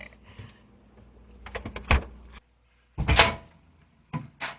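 Household handling knocks in a small room: a few clicks and knocks, then a loud bang of a door or cupboard door shutting about three seconds in, followed by two lighter knocks.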